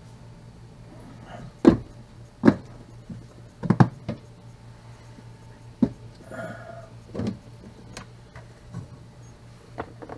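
A clip-lid plastic storage box being handled on a countertop: a series of sharp plastic clicks and knocks, the loudest in the first four seconds, over a low steady hum.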